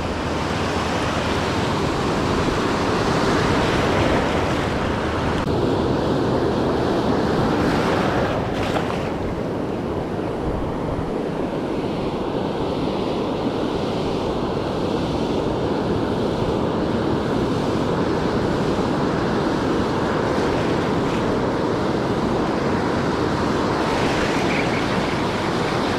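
Ocean surf breaking and washing up over the sand in a steady rush.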